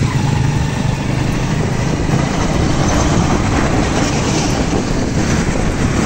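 Motorcycle engine of a passenger tricycle running steadily while riding, with road and wind noise.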